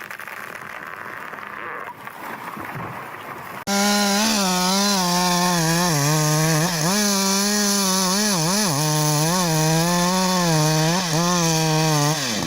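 A quieter, even noise, then after about four seconds a two-stroke chainsaw suddenly comes in loud at full throttle, cutting into a tree trunk. Its high engine note dips in pitch again and again as the chain bogs in the wood, then picks back up.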